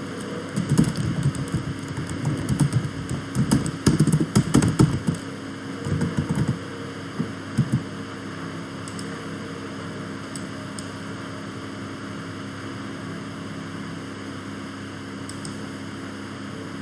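Steady low electrical hum. Over the first seven seconds there are irregular clicks and soft knocks, as of a computer keyboard and mouse in use.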